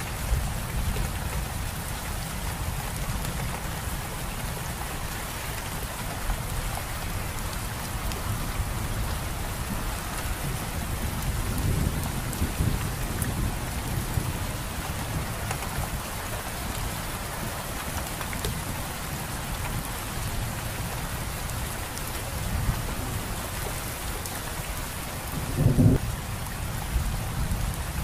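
Steady rain falling on leaves, with a low rumble underneath. About 26 seconds in there is one short, louder low thud.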